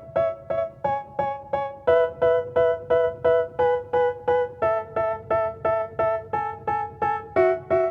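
Background music: an electric-piano or keyboard riff of short repeated chords, about three to four a second, changing chord roughly every second. It is the instrumental intro of a rap track.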